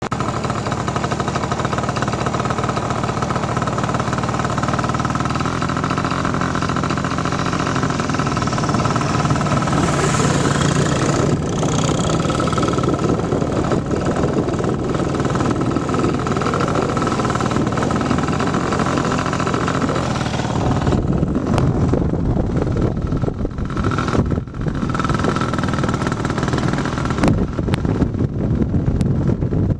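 Motorbike engine running steadily while riding along, mixed with wind rushing over the microphone. The wind rumble grows heavier in the last third, with a few brief dropouts.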